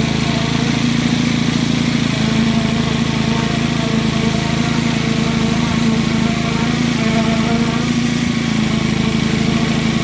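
An engine running steadily at a constant speed: a continuous low hum made of several steady tones, with no change in pitch.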